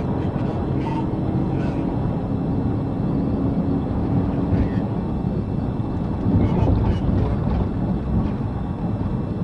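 Steady noise of road, wind and engine inside a police cruiser driving at over 100 mph.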